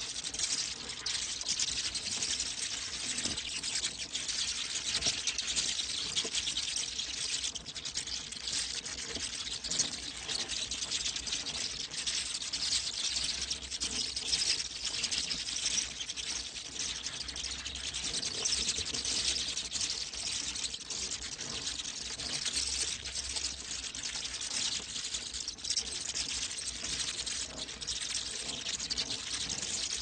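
Dense, continuous high-pitched chittering of many bats, a steady mass of tiny rapid squeaks and clicks with no let-up.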